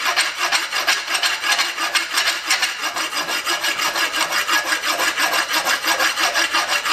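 An old, blunt farrier's rasp filing a red-hot steel punch in quick, even back-and-forth strokes. It is taking off ingrained scale and a thin layer of surface metal to smooth the finish.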